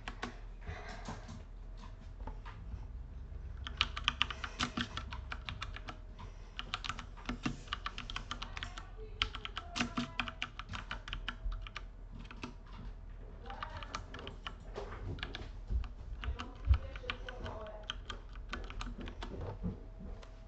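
Typing on a computer keyboard: quick runs of keystrokes in several bursts with short pauses between.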